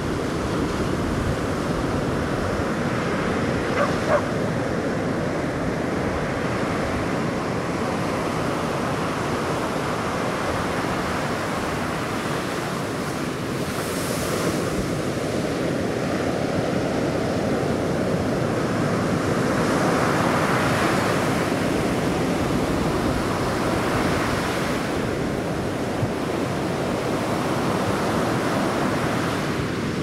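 Ocean surf breaking and washing up the beach in a steady rush, swelling louder about two-thirds of the way through, with some wind across the microphone.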